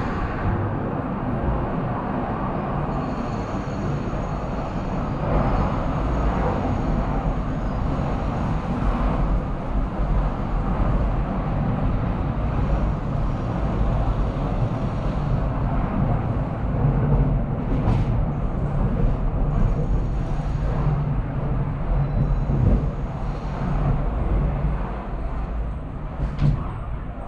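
Polybahn cable funicular car climbing on its rails, heard as a steady low rumble of wheels and running gear. A few sharp clicks come in the second half.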